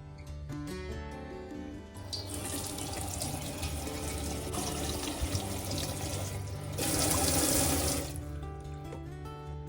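Water running for about six seconds, starting about two seconds in and heavier for a second or so before it stops, over background music.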